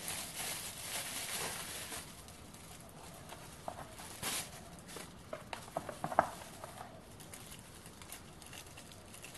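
Bubble wrap rustling and crinkling as a small rotary tool is unwrapped by hand. The rustling is heaviest in the first couple of seconds and gives way to scattered light clicks and taps of the tool and case being handled.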